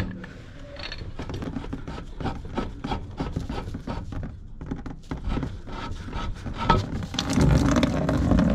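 Scraping and clicking as a threaded pipe union on a hydronic valve is worked loose and a plastic bucket is brought under it. About seven seconds in, a steady splashing starts as the water left in the drained coil piping pours from the opened joint into the bucket.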